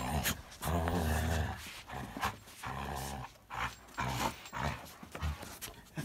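Dog growling while tugging hard on a jute bite pillow, in several low bouts of a second or so each with short breaks between.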